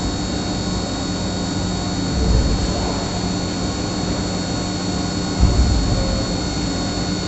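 CNC milling machine running its part program: a steady machine drone with a constant high whine, swelling in low rumbles about two seconds and five seconds in.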